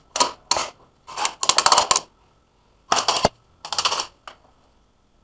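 About six short bursts of rapid clicking and rattling, from a gloved hand working with hard plastic cable fittings.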